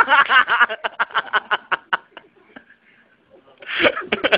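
A man laughing in a quick run of short bursts that fades out after about two seconds, followed by another short burst of laughter or voice near the end.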